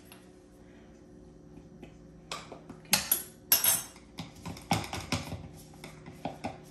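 A plastic shaker of grated parmesan cheese tapped and shaken over a blender jar: a string of irregular clicks and knocks, starting about two seconds in.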